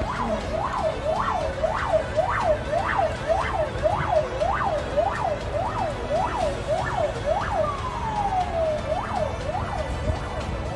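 Emergency vehicle siren on a fast yelp, its pitch rising and falling about twice a second. Near the end it gives one slower falling sweep, then goes back to the yelp.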